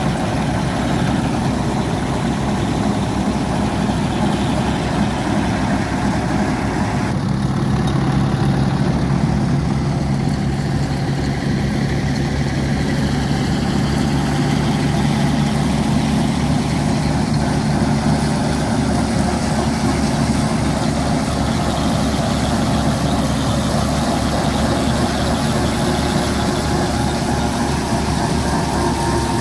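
Belarus tractor's diesel engine running steadily, driving a PTO-powered wheat straw reaper that cuts stubble and blows chopped straw through its spout: a dense, even machine drone. Its tone shifts abruptly about seven seconds in.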